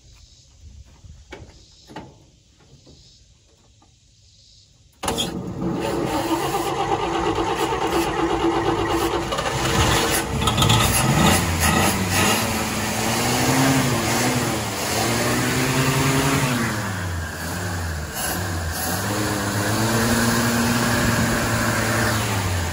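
A 1954 Chevrolet truck's straight-six engine fires about five seconds in and keeps running, its revs rising and falling, fed by fuel poured straight into the carburetor. A few faint knocks come before it starts.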